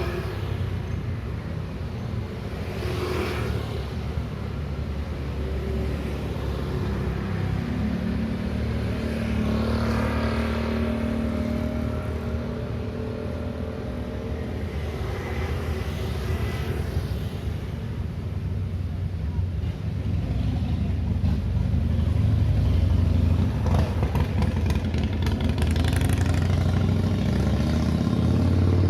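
Busy street traffic at an intersection: cars and motorcycles running and pulling away over a steady engine rumble, louder in the last third.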